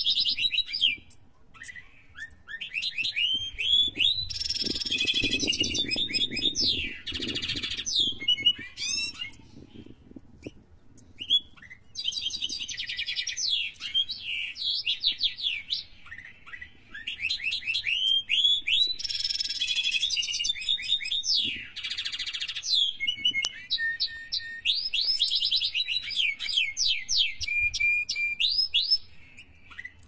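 Budgerigars chirping: runs of quick, high rising and falling chirps that come in bursts a few seconds long, with short pauses between.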